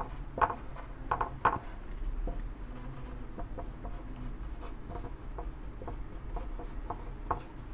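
Marker pen writing on a whiteboard: a string of short strokes, a quick run of louder ones in the first second and a half, then fainter ones.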